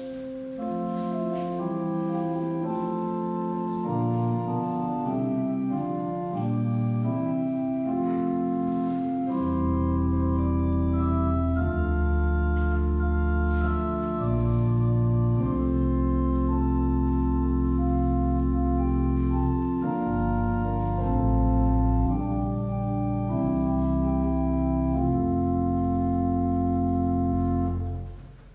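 Church organ playing a slow piece in held chords. Deep pedal bass notes come in about ten seconds in, and the music dies away just before the end.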